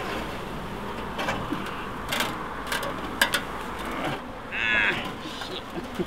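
Scattered knocks and scrapes of sheet-metal chimney flashing and loose debris being handled, the sharpest about three seconds in. About three-quarters of the way through comes one drawn-out, crow-like caw.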